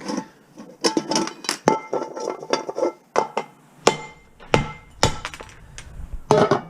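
Hammer whacking a piece of cast metal scrap again and again, over a dozen uneven blows, each leaving a short metallic ring as he tries to knock it apart.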